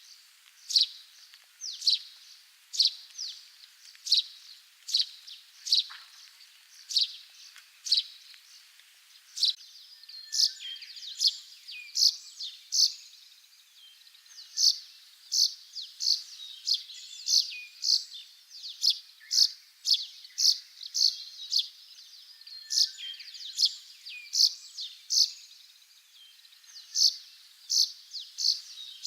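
Russet sparrow singing: a string of short, sharp chirps, about one every 0.7 seconds, growing denser after about ten seconds with softer notes between them. Though it sounds like plain chirping, this is the bird's song.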